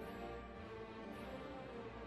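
Soft instrumental background music with held chords.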